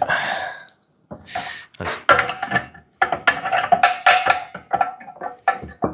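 Hand tool working a bolt on the compressor's wheel axle: a run of irregular metal clicks and clanks, some ringing briefly off the steel parts.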